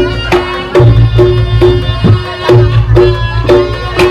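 Reog Ponorogo gamelan playing loudly. A bronze pot-gong tone is struck a little over twice a second over kendang drum strokes, with low gong booms recurring about every second or two and a sustained reedy slompret-like melody on top.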